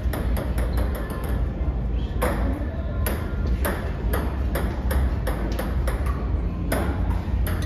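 Many sharp, irregular clicks and ticks from a cruise ship's interior fittings creaking as the ship rolls in rough sea, over a steady low rumble.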